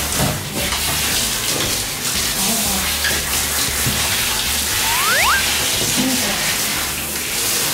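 Handheld shower head spraying water onto a dog's legs and the tiled bathroom floor, a steady hiss of running water.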